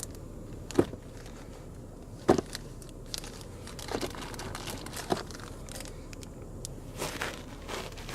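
Packaging handled while a graphics card box is unpacked: crinkling and rustling with scattered clicks and knocks, the loudest knock about two seconds in, over a steady low hum.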